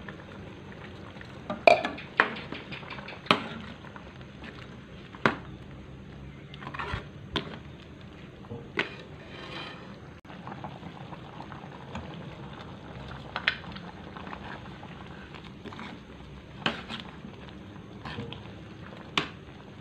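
A metal ladle stirring a simmering chicken curry in a wok, knocking and scraping against the pan every second or two, over the steady bubbling of the sauce.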